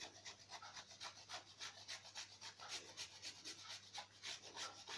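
Chocolate being rubbed across a flat stainless steel hand grater: faint, quick, regular rasping strokes.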